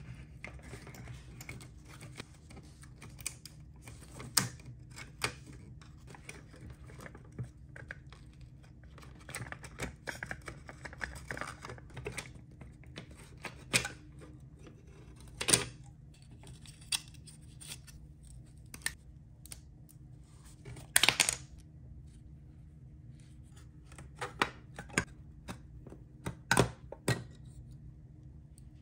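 Scattered sharp clicks, scrapes and small rattles of a rusted diecast model pickup being taken apart by gloved hands: the metal body and plastic chassis parts clicking and knocking against each other as they come loose, with soft glove rustling between. Near the end a small screwdriver prys at a door hinge.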